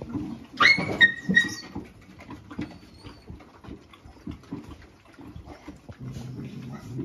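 A dog yelps sharply three times in quick succession about half a second in, a high cry followed by two shorter ones, while a pack of dogs eats crowded together, with a constant clicking of chewing and jostling.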